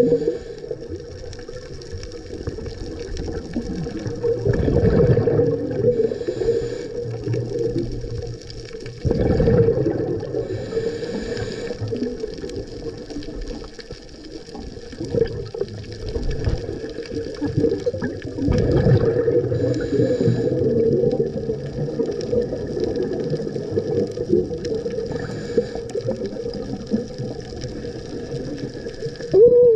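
Scuba diver's regulator breathing heard underwater: a bubbling rush of exhaled air every few seconds, with a fainter hiss of inhalation between, over a steady underwater rumble.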